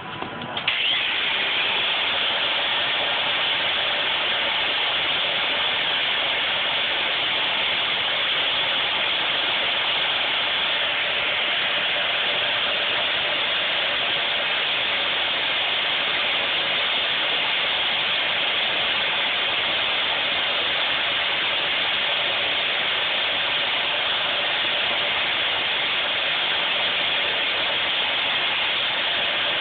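Disc brake grinding: a steady, harsh grinding hiss that starts about a second in and holds at an even level.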